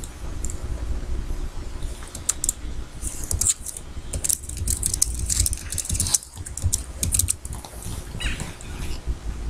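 Computer keyboard keys clicking in quick runs while text is deleted and typed, over a steady low hum.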